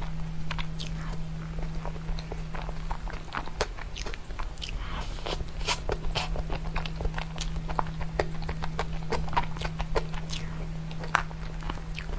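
Close-miked eating of a soft chocolate cream dessert: wet mouth clicks and lip smacks, with a metal spoon scraping the plastic cup, over a steady low hum.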